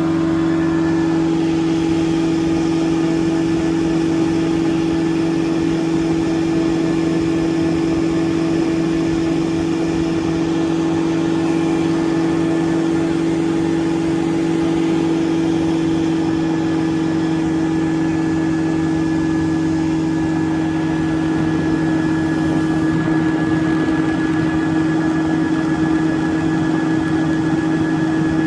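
CGS Hawk ultralight aircraft's engine and propeller running steadily in flight, one even drone that holds its pitch throughout.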